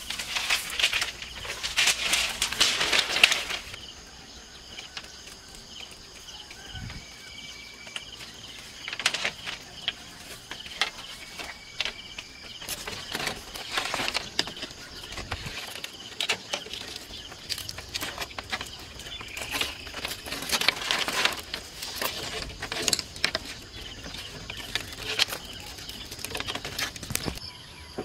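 Bamboo poles and split-bamboo slats clattering, knocking and rustling as they are carried and tied onto a frame, in uneven bursts that are loudest near the start and again in the middle and latter part, over a steady faint high-pitched hum.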